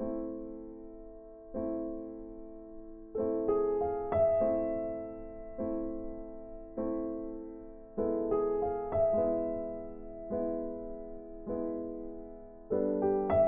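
Slow background piano music: chords struck about once a second, each fading before the next, with a few quicker runs of notes in between.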